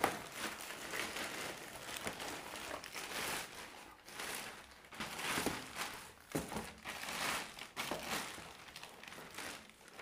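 Clear plastic bag crinkling and rustling in irregular bursts as it is handled and pulled off a metal washing-machine stand.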